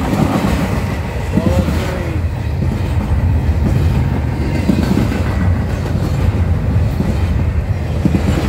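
Double-stack intermodal freight cars rolling past at speed, their steel wheels on the rail making a steady low rumble.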